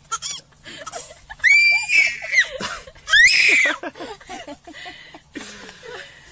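A baby squealing with delight twice, two short high-pitched shrieks about a second apart, the second the loudest.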